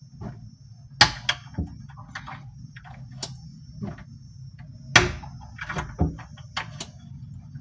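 A cabinet door and its newly fitted sliding bolt being tried: a run of sharp clacks and knocks of wood and metal, the loudest about a second in and about five seconds in. The bolt sits too high to engage the striking plate.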